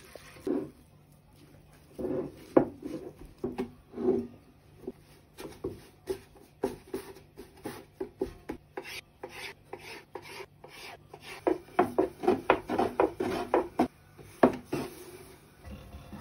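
Hands mixing and kneading dough, then a thin wooden rolling pin working it out on a wooden board: many short strokes of wood on wood, coming thick and fast for a few seconds near the end.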